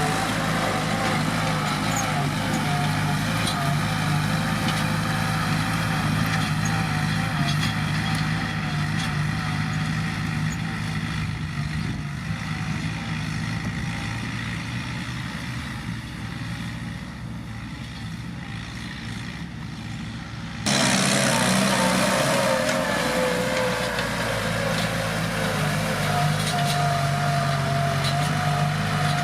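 Kubota M7040 tractor's diesel engine running steadily. It fades slowly, then comes in suddenly louder about twenty seconds in.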